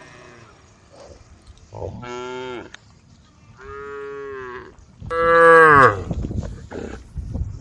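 Cows mooing: three separate long calls, the last the loudest.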